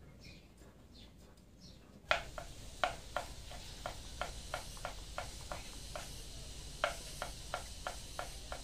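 Kitchen knife chopping on a wooden cutting board, a run of sharp irregular taps at about three a second that starts about two seconds in. Faint bird chirps come before it.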